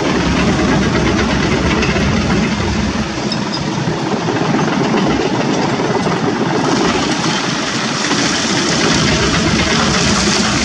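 Kobelco SK200-10 hydraulic excavator's diesel engine running steadily under load while it swings and loads a dump truck. About two-thirds of the way in, a hissing rattle of wet gravel pouring from the bucket into the steel truck bed joins in.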